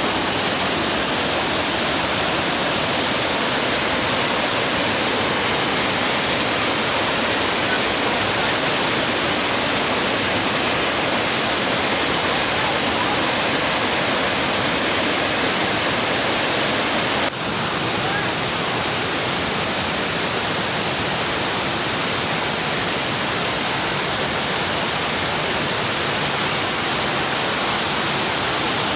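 Steady rushing of flowing water, an even noise without pitch, with a brief break about 17 seconds in.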